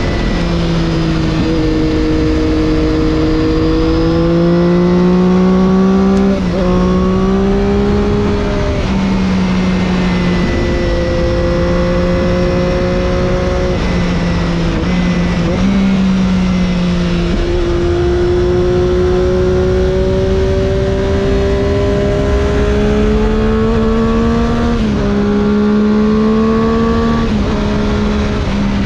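Triumph Daytona 675's inline three-cylinder engine, fitted with an Arrow exhaust, running under a rider's throttle. Its pitch climbs and falls with engine speed and drops sharply several times, over a steady rush of wind.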